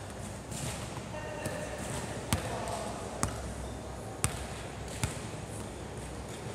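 Four sharp smacks of a volleyball about a second apart, with players' voices faintly in the background.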